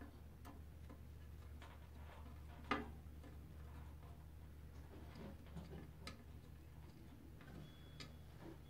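Faint, scattered clicks and ticks of a small screwdriver turning screws into a metal mounting bracket, one sharper click about three seconds in, over a low steady hum. A brief thin high tone sounds near the end.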